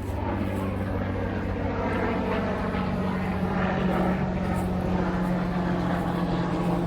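An engine running with a steady drone, settling at a slightly higher pitch about two seconds in.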